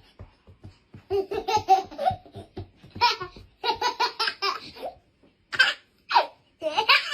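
High-pitched laughter in rapid, repeated bursts of ha-ha, breaking into short squeals near the end.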